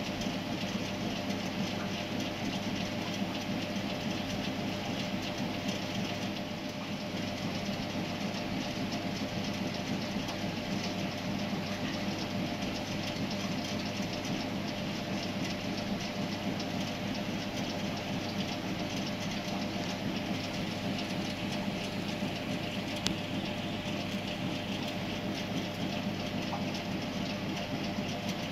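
Steady mechanical rumble with a constant low hum and a faint fixed tone, unchanging throughout.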